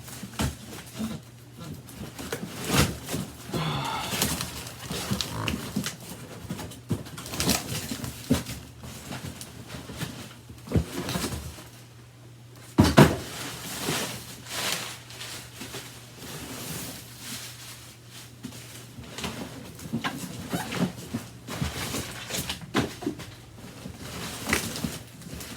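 Packing material being handled and pulled off a boxed vacuum cleaner: irregular rustling, crinkling and knocks, with a brief squeak about four seconds in.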